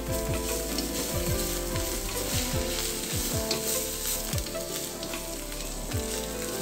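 Cabbage, choy sum, egg and shrimp sizzling in a hot oiled wok, stirred and tossed with a wooden spatula that scrapes against the wok. The sizzle is a steady hiss.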